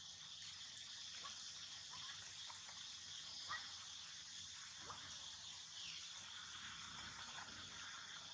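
Faint, steady buzzing of an insect chorus, with a couple of short chirps about a third and about halfway through.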